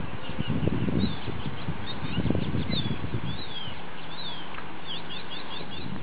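Small birds chirping: quick runs of short, high, falling chirps and a few sweeping calls, over a low background rumble that eases about halfway through.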